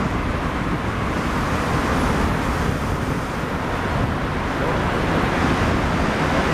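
Steady traffic noise from cars driving through a road tunnel, echoing off the tunnel walls, with heavy low rumble from wind on the microphone of a moving bicycle.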